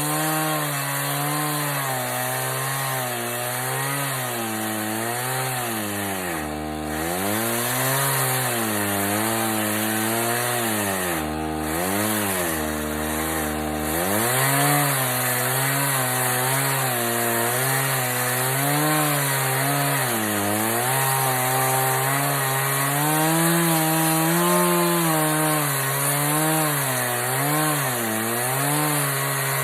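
Chainsaw cutting wood, its engine speed wavering up and down as it works through the cut. It drops briefly toward idle about seven seconds in, and again for a few seconds about halfway through.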